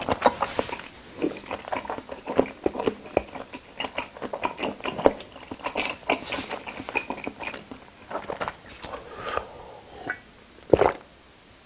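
A person chewing and biting food close to the microphone, a dense run of small crunching and mouth sounds that thins out over the last few seconds, with one louder short sound near the end.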